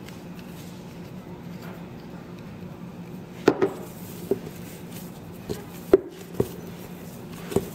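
Glutinous rice flour dough being kneaded by hand in a glass mixing bowl, with six or so short sharp knocks against the glass as the hands work the dough, starting a few seconds in.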